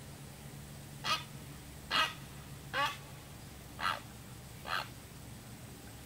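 Great blue heron calling: five short, harsh squawks spaced about a second apart, the second one the loudest.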